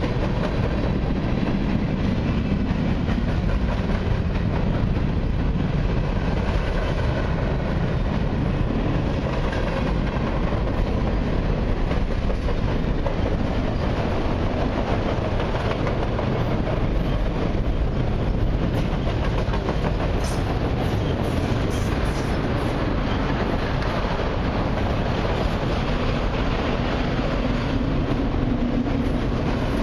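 A freight train's cars, covered hoppers and then autoracks, rolling steadily past: a continuous rumble of steel wheels on the rails, with a few faint high clicks about two-thirds of the way through.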